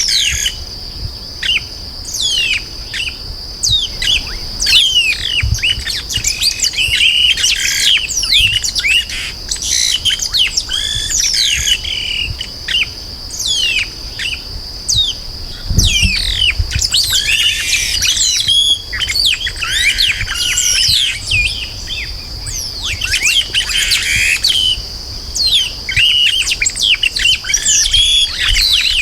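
Chestnut-capped blackbirds (chupim-do-brejo) singing in chorus: many overlapping chirps and quick falling whistles, with a steady high tone running underneath.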